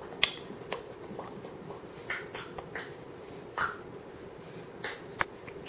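Sparse small clicks and wet smacks from a baby eating spaghetti with his hands, over a faint steady hum.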